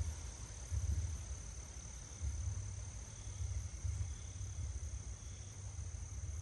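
A steady high-pitched insect trill over low, uneven rumbles of wind buffeting the microphone.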